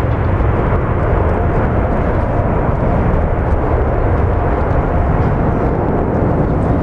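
Loud, steady jet noise from a Boeing 777-200's twin turbofan engines at takeoff thrust as the airliner climbs away: a deep rumble with a rushing layer above it and little high-pitched content.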